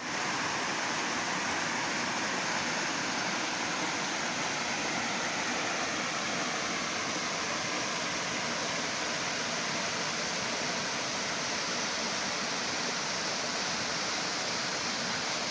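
Small forest stream cascading over boulders into a shallow pool: a steady rush of running water.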